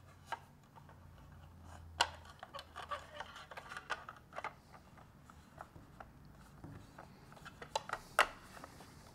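Scattered light clicks and taps of a cover being handled and fitted onto a drone's frame, the sharpest about two seconds in and again near the end.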